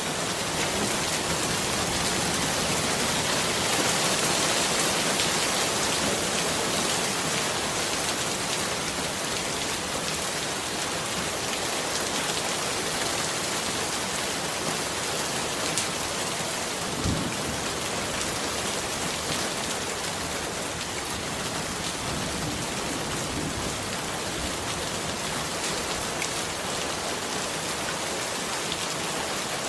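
Steady rain falling on leaves: an even hiss of many drops, with two faint knocks near the middle.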